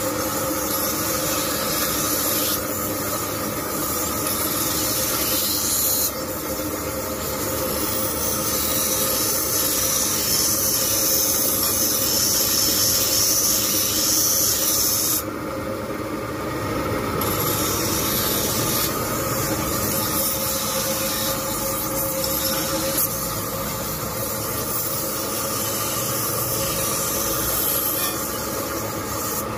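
Scissor blades being ground on a motor-driven grinding wheel: a steady, loud hiss of steel rubbing on the abrasive disc over the hum of the electric motor and wheels. About halfway through, the hiss breaks off for a couple of seconds, then resumes.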